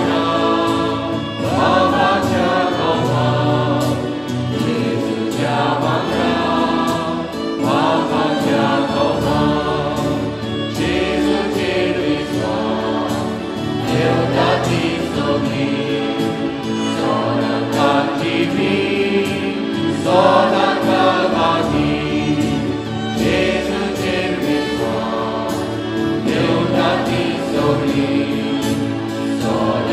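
A small church choir singing a hymn in parts, accompanied by a keyboard and a violin, with steady sustained notes.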